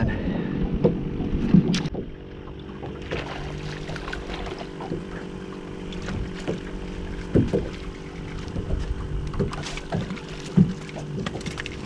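Steady hum of a boat motor, a stack of even tones holding one pitch throughout, with wind on the microphone for the first couple of seconds and a few light knocks.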